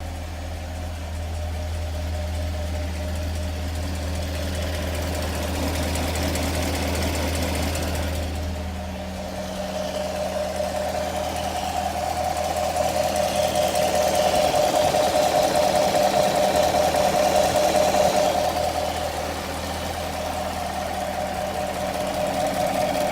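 2016 Camaro SS's 6.2-litre LT1 V8 running at idle with a rattly tick from the driver's side head, louder than normal direct-injection tick, which the owner suspects is a lifter. It runs a little louder for several seconds in the middle.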